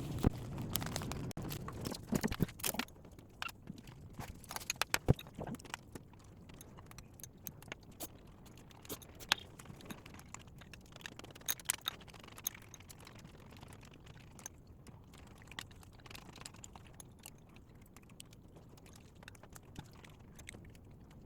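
Scattered light clicks and taps of utensils against dishes, irregular and a few seconds apart, loudest in a cluster around four to five seconds in, over a quiet background.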